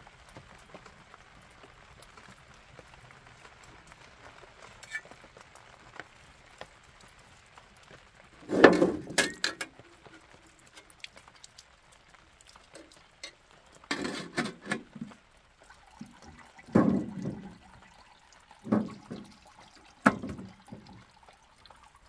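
Water splashing and sloshing in a square metal tin at an outdoor tap as vegetables are washed by hand, in about five short bursts with a faint clink of metal, the loudest burst about a third of the way in.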